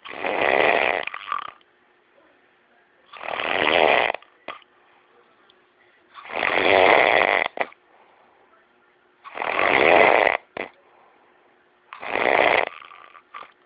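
A man snoring in his sleep: five long snores, each about a second long, coming about every three seconds with quiet breaths between.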